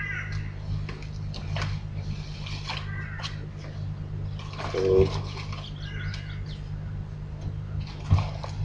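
Packaging crinkling and rustling in short crackly bursts as a parcel is opened by hand without a knife, over a steady low electrical hum.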